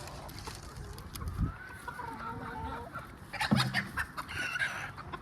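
Chickens clucking in short, wavering calls, with one louder call about three and a half seconds in.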